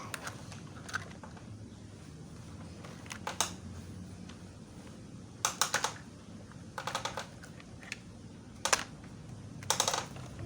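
Light plastic clicks and clatters from toy trucks being handled and loaded, coming in about five short clusters.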